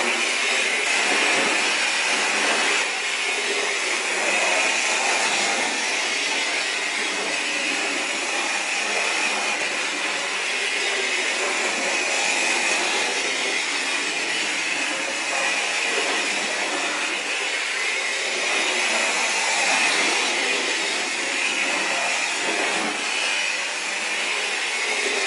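A model steam locomotive running on its track: the steady whir of its small electric motor and gearing with the rattle of its wheels on the rails.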